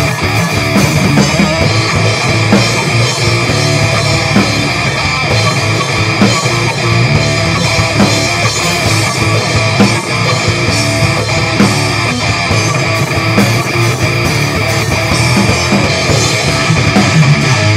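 Instrumental rock, with a guitar and a drum kit playing together, from a basement demo converted from cassette tape.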